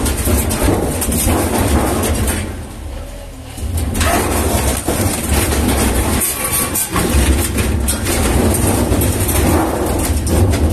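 Yanmar SV18 mini excavator's diesel engine running with a steady low rumble. It eases off briefly about two and a half seconds in, then picks up again.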